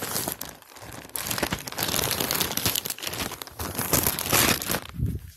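Clear plastic packaging bag crinkling and rustling as a jersey is handled inside it. There is a brief lull about half a second in, and the rustling stops just before the end.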